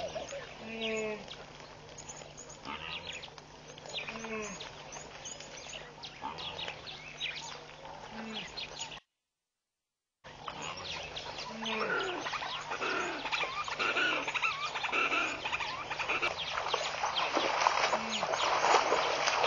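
Birds calling and chirping: repeated short low calls every second or two, with higher chirps over them. The sound drops out completely for about a second partway through; afterwards the chirping is denser, and water splashes near the end as a wildebeest moves in the shallows.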